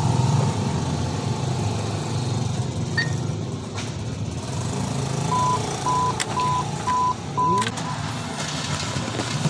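A steady low rumble of traffic runs throughout. A little past halfway come five short electronic beeps at one pitch, evenly spaced about half a second apart, along with a few faint clicks.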